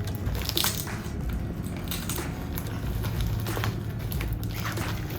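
A mailing package being pulled and torn open by hand: irregular crackling and crinkling of the packaging.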